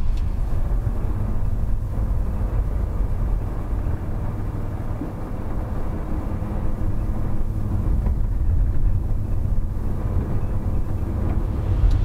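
Motorhome driving, with a steady low engine and road rumble heard inside the cab.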